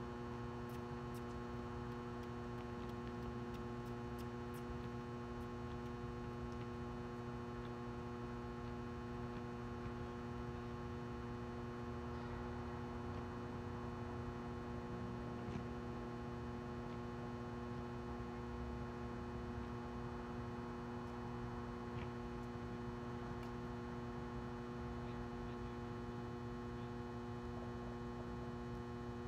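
Steady electrical mains hum from the court's floodlights: an even low buzz with a stack of overtones, unchanging throughout.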